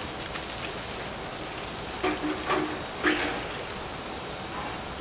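Water gushing out of the open end of a self-cleaning water filter's housing and splashing onto the floor: the water left standing inside the 10-micron screen is draining out as the screen assembly is pulled loose. A few short, louder sounds come between about two and three seconds in.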